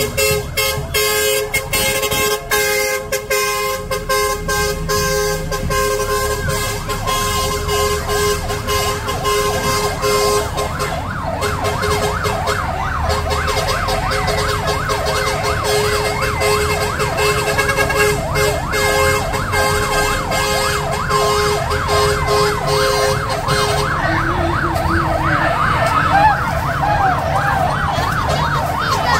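Several vehicle sirens yelping together, their pitch rising and falling rapidly over and over. Music with a beat is heard at first, and the sirens take over about a third of the way in.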